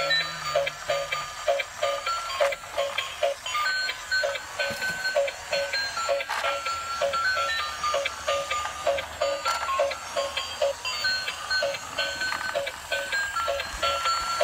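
Battery-powered transparent gear toy car playing its built-in electronic tune: a beeping melody over a steady beat of about three pulses a second.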